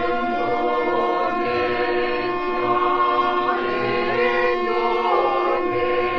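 Emergency alert alarm sound: several steady tones held together as a chord, with other pitches gliding slowly up and down over them, giving a choir-like wail.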